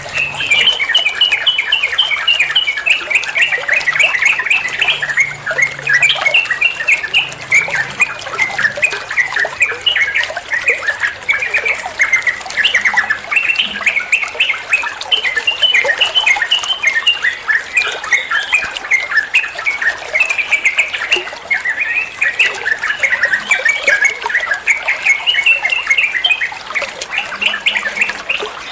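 Yellow-vented bulbul (trucukan) singing a long, unbroken run of rapid chattering notes with no pauses: the fast nonstop 'ropel' style of song.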